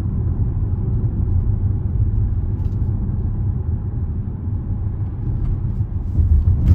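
Steady low road rumble and engine noise inside a moving car's cabin, with a brief knock right at the end.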